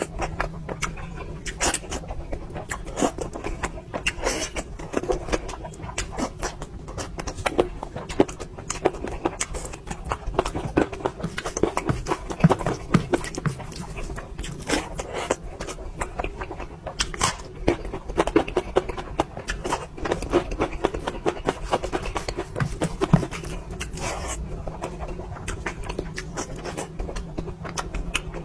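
A person eating curry close to the microphone: wet chewing and lip smacking, a dense run of irregular clicks and smacks with no pauses.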